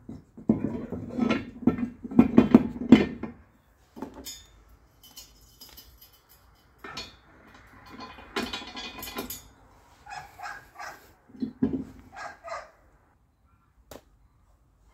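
Steel ratchet jack stands being raised by hand: the toothed support columns click and clatter over the locking pawls, with the loudest bursts in the first few seconds, then lighter metal knocks, rattles and short ringing clinks, and a single sharp click near the end.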